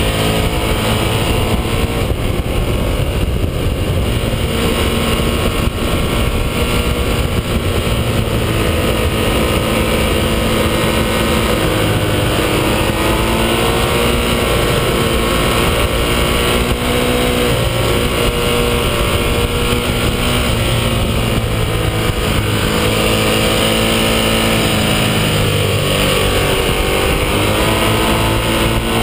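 Ducati 1198S's L-twin engine running hard on track, heard close from a fairing-mounted camera, its note rising and falling again and again with the throttle, over steady wind rush.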